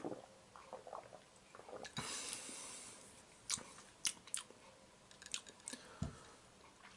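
Faint mouth sounds of a person tasting a drink: a soft sip, then several lip-smacking clicks. About six seconds in, a glass is set down on the table with a knock.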